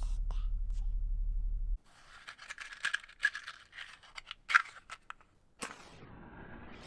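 A steady low hum cuts off about two seconds in. Then a matchbox is handled and a match scratched along its striker, catching with a sharp rasp near the end and hissing as it burns.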